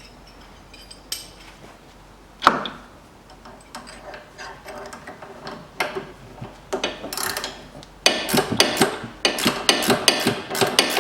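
Metal hand tools clicking and knocking on the lower nut of a front stabilizer link being unscrewed, with a sharp metal knock about two and a half seconds in. From about eight seconds in, the clicks come in a fast, continuous run.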